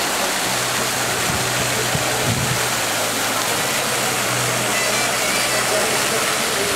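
Ground-level splash fountains running: a steady rush of falling, splashing water, with a low steady hum underneath.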